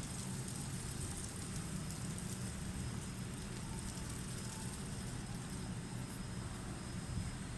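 Strong wind rumbling low and steadily, with a faint hiss above it.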